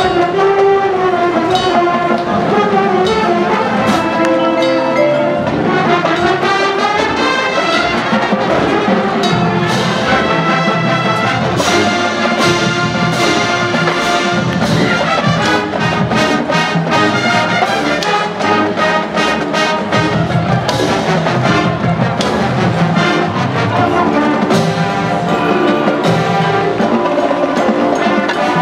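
High school marching band playing its halftime show: full brass sections sustaining chords that bend in pitch during the first few seconds, over drumline and sideline pit percussion strikes.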